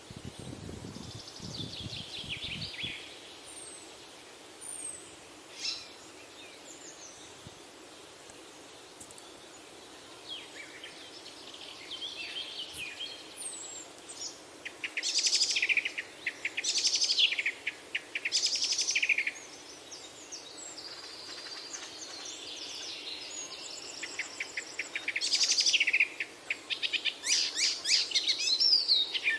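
Several songbirds singing and chirping: bursts of rapid trills and twittering, coming more often and louder in the second half.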